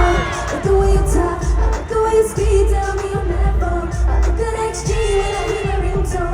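Pop song with female singing over a heavy bass beat, which kicks in right at the start, played loud over an arena sound system at a live concert.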